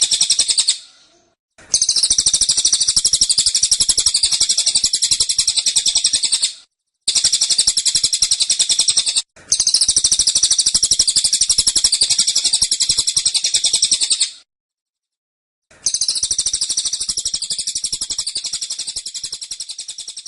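Cililin songbird singing rapid, high trills of fast-repeated notes (the 'tembakan' or 'shooting' song). There are four long bursts of a few seconds each, with short pauses between them.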